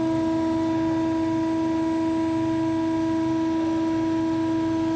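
Steady machine hum: one constant tone with fainter overtones above it and a low wavering rumble underneath, unchanging throughout.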